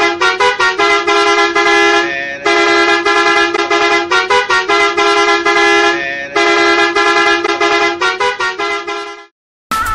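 A musical vehicle horn plays a short tune of quick staccato notes and held notes, the phrase repeated over and over, then cuts off suddenly near the end.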